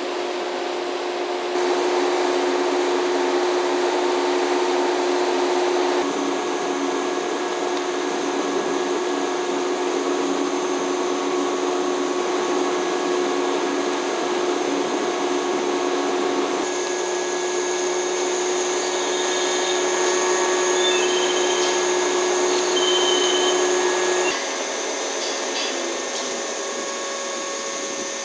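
Steady whirring hum of a stationary JNR Class 443 electric inspection car's onboard auxiliary machinery idling, with several steady whining tones over a constant rush. The mix of tones changes abruptly a few times.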